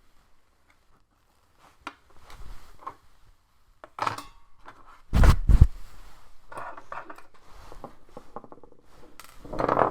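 Small metal parts and tools being handled during laptop repair: scattered light clicks and scrapes, with one loud knock about five seconds in.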